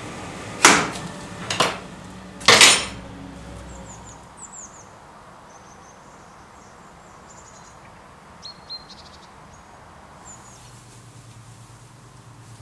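Three loud metal clanks in the first three seconds, the last ringing briefly. Then birds chirping in short, high, falling calls, and a low steady hum starting near the end.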